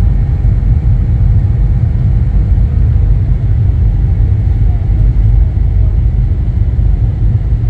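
Airliner cabin noise on approach: a loud, steady low rumble with a faint constant hum above it.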